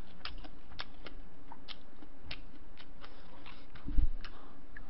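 Light, scattered clicks and ticks of someone eating at a table, with one dull thump about four seconds in.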